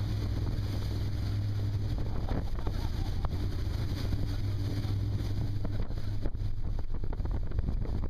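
Motorboat engine running steadily at speed as a low drone, with wind buffeting the microphone and water rushing past the hull. The drone weakens about six seconds in while the wind and water noise carries on.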